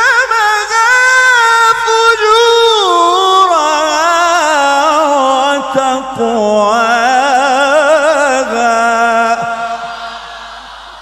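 A male Quran reciter's unaccompanied, amplified voice holding one long melismatic phrase of tajweed recitation with a wide, wavering vibrato, its pitch stepping slowly downward. The phrase ends about nine and a half seconds in and fades away.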